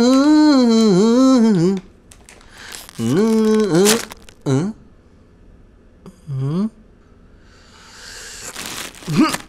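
A man's wordless bored moaning and humming: several drawn-out tones that waver and bend in pitch, the longest about two seconds at the start, then a long breathy exhale near the end.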